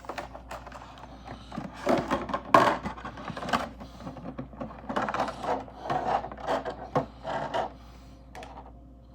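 Packaging and a small PVC collectible figure being handled: a run of irregular crinkling, rustling, taps and clicks, busiest in the middle and dying away near the end.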